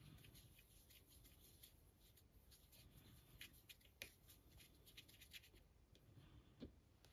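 Near silence, with a few faint scattered clicks and light rubbing of a paintbrush being worked in a pot of thinned paint.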